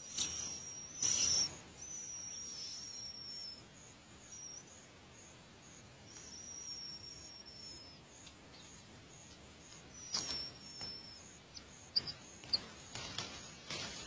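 Nestling songbirds in a ground nest giving thin, high, drawn-out begging calls, several held notes each up to about two seconds long, with a few short rustles.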